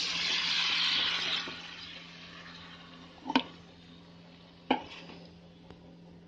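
Raw potato slices hitting hot mustard oil in a kadhai, a loud sizzle that dies down after about a second and a half to a faint frying hiss, while they are stirred. Two sharp knocks on the pan, about three and a half and nearly five seconds in.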